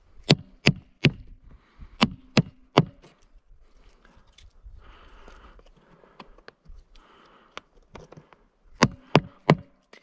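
Wooden knocks as a short birch log strikes a stick of wood to split kindling splinters off it: three quick knocks about a third of a second apart, again three about two seconds in, and three more near the end, with fainter cracking and rustling in between as the splinters are worked off.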